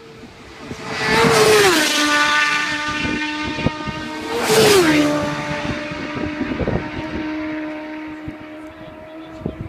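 Two racing motorcycles pass at full speed, one about a second in and another about four and a half seconds in, each engine note dropping sharply in pitch as it goes by, then fading away down the road.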